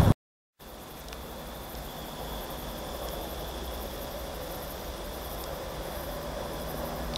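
Steady outdoor ambience with a faint continuous insect trill over low rumble and hiss. The sound starts about half a second in after a brief dropout.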